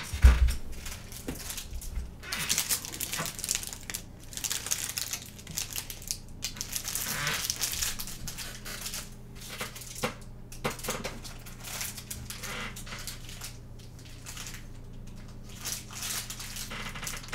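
Rummaging through packs of plastic card sleeves: irregular crinkling and rustling of plastic, with a knock right at the start. A faint steady hum runs underneath.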